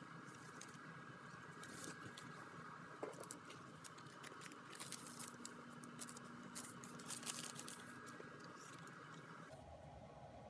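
Faint rustling and crinkling of handled packaging, with scattered light clicks and ticks over a steady faint hum.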